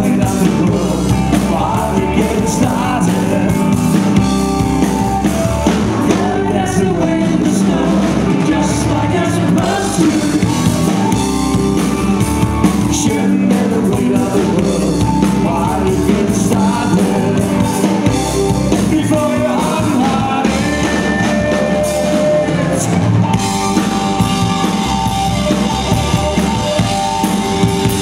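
Live rock band playing loudly: electric guitar, bass guitar and drum kit, with a singer's vocals over the top.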